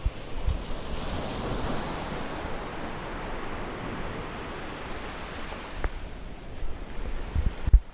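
Ocean surf breaking and washing up the sand, a wave's rush swelling over the first few seconds. Wind buffets the microphone in low thumps, several of them near the end.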